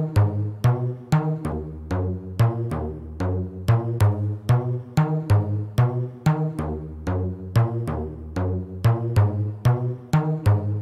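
Reggaeton music: a steady drum-machine beat under a repeating melody, with no singing.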